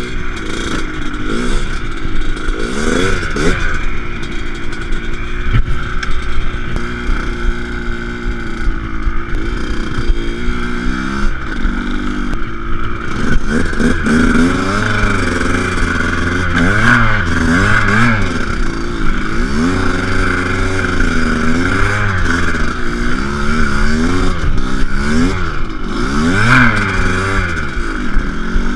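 Motocross dirt bike engine revving up and falling back again and again as it is ridden.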